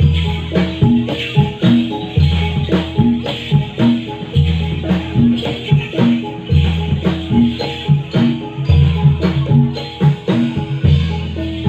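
Gamelan-style accompaniment for a gedruk dance: a stepping melody over a deep note that sounds about every two seconds. The dancers' ankle bells jingle and rattle along with it.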